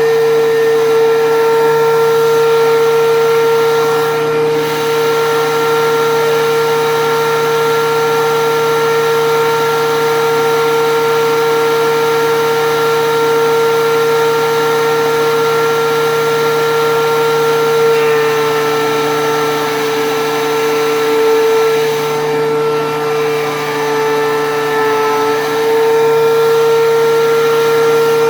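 DeWalt DW735 13-inch thickness planer running with a loud, steady high whine while planing rough-cut red oak boards; the pitch sags and wavers slightly about two-thirds of the way through.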